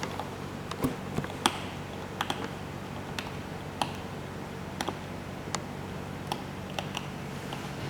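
A series of sharp, irregularly spaced clicks and taps, about two a second, over a steady low hum.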